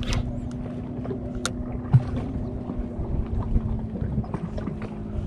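Open-water sound aboard a small fishing boat: wind buffeting the microphone and water moving around the hull, under a steady low hum. A single sharp knock comes about two seconds in.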